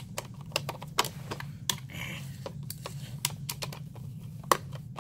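Irregular sharp clicks and small scrapes of a screwdriver working at the screws in the plastic base plate of a Bissell PowerForce Compact vacuum, several clicks a second. The screwdriver bit is too small for the screws and keeps skipping instead of locking on.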